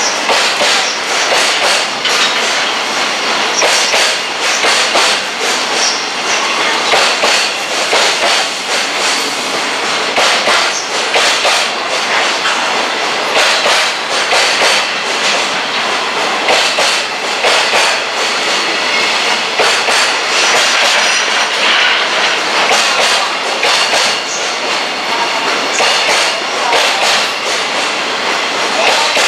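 Freight train passing close by, its wagons' wheels clacking continuously over the rail joints.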